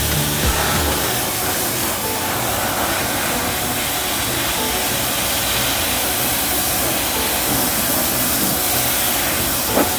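Wholesun electric pressure washer spraying a steady jet of water through a light, wide tip onto plastic vegetable trays: an even, continuous hiss of spray over the motor's running.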